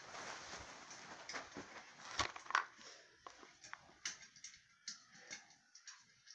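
Faint clicks, taps and scrapes of a light bulb and glass fitting being handled at a ceiling fan's light fixture, with two louder clicks about two seconds in.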